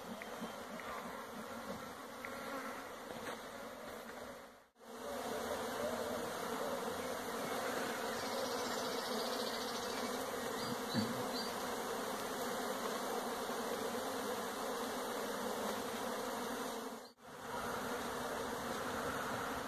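A large mass of honeybees buzzing in a dense, steady hum around a colony broken open in a masonry wall, the sound of a disturbed colony during removal. It cuts out briefly twice and is somewhat louder after the first break.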